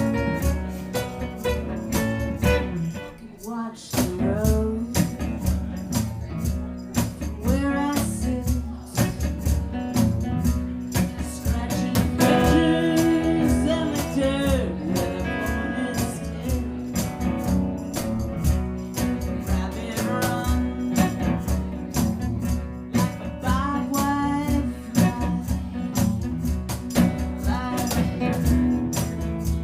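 Live music: a song played on strummed guitar over steady low notes, with a voice singing the melody from a few seconds in after a brief quieter moment.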